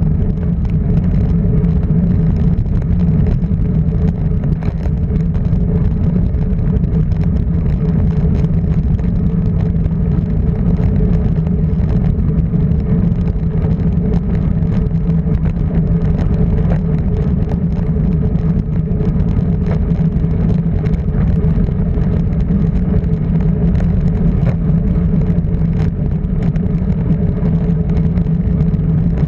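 A vehicle engine running at a steady speed: a constant drone that holds the same pitch throughout, over road and wind noise.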